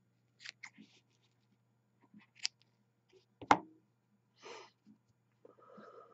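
Small scissors snipping the tails of an organic cotton wick at a vape coil: a few short, sharp snips, the loudest about three and a half seconds in, with quieter handling sounds between.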